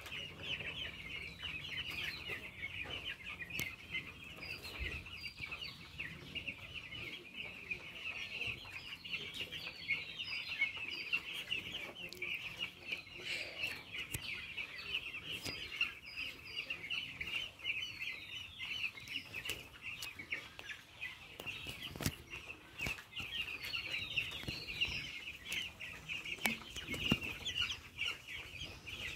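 A large flock of 12-day-old broiler chicks peeping without a break, countless short high cheeps overlapping into one steady chorus.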